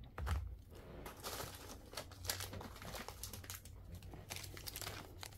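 Plastic packaging crinkling and rustling in irregular bursts as a small item is handled and unwrapped, with a low thump near the start.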